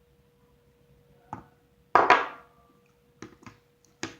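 Hard objects knocked and set down on a tabletop: one knock, then a loud double clatter about two seconds in with a short ringing tail, then a few lighter taps near the end. A faint steady hum sits underneath.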